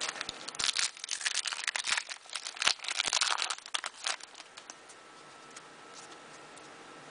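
A foil wrapper of a Panini NBA Hoops basketball trading-card pack being torn open and crinkled for about four seconds, then the crinkling stops.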